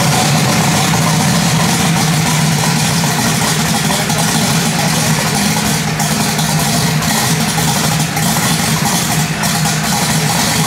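An engine running steadily, a constant low drone that neither revs nor changes.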